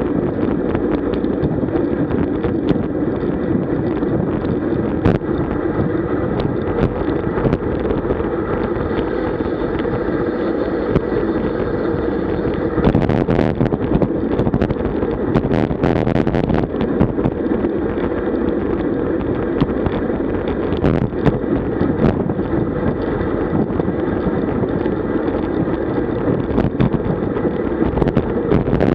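Wind rushing over a bike-mounted camera's microphone during a fast road-bike ride, with scattered sharp clicks throughout. About halfway through comes a short spell of louder clattering.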